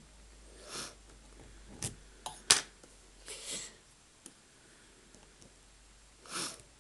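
Metal lock picks working in the keyway of a Kasp 180 series padlock: scattered soft scrapes and small ticks, with one sharp click about two and a half seconds in.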